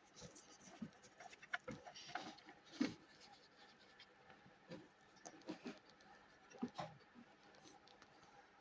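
Faint, irregular clicks and scratches of hands handling and working on plastic parts during disassembly, with one louder tap a little under three seconds in.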